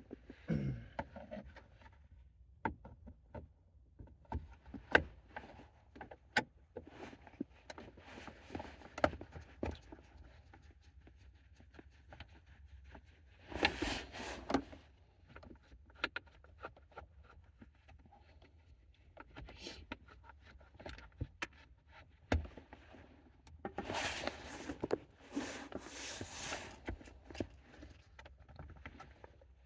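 Scattered clicks, taps and knocks of hands and tools working on a car's steering column and ignition, with a couple of longer handling noises about halfway through and near the end.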